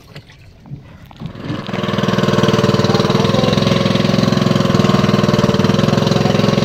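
A small boat engine starting about a second and a half in, then running steadily with a fast, even beat.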